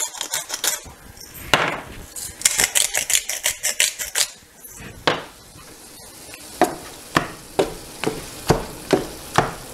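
A salt and pepper grinder twisted over a pan of browning ground turkey, a run of gritty crunches in the first half. Then a spatula scraping and tapping the nonstick frying pan about twice a second as the meat is stirred, over a faint sizzle.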